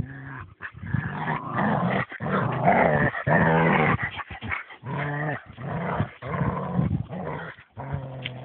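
Dog growling in a run of long, low rumbling growls broken by short pauses, loudest a second or two in, typical of rough play with another dog.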